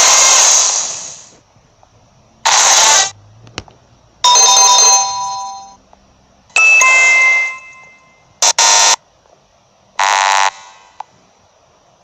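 A run of about six separate short editing sound effects, each a second or so long, with short gaps between them. Some are noisy swooshes or hits, and others ring with chime-like tones, one of them like a ding-dong doorbell.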